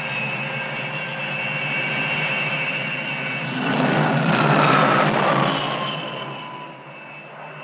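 Jet engines whining on an aircraft carrier's flight deck. About halfway through, a jet passes close: its noise swells and its pitch falls, then it fades away.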